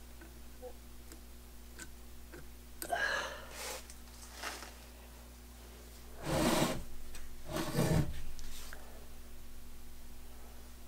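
Small metal parts of a cast-iron super spacer clinking and rubbing as it is reassembled, then two heavy knocks about a second and a half apart as the heavy spacer body is shifted on the wooden workbench.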